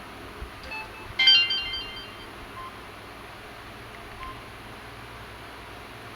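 Samsung GT-E1150 mobile phone playing a short bright multi-note chime about a second in, dying away over about a second. A few faint short keypad beeps follow it.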